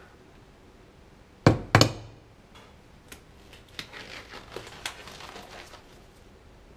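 Two sharp knocks about a second and a half in, the loudest sounds, followed by the crinkly rustle and small snaps of black disposable gloves being pulled on.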